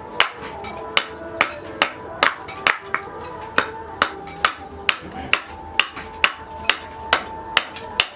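Hammer striking steel on an anvil in a steady rhythm, about two blows a second, each blow ringing.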